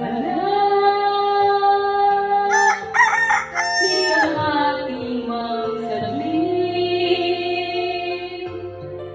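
A woman singing into a handheld microphone over backing music, holding long notes, with a loud, high passage about two and a half to four seconds in.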